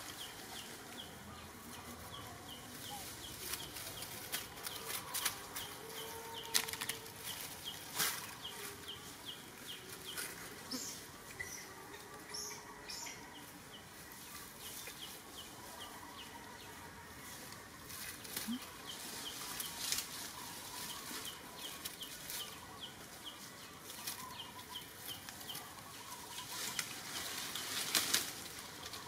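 Macaques moving over dry leaf litter: scattered crackling rustles of dry leaves, louder near the end. Behind them a faint high chirp repeats about twice a second through the first half.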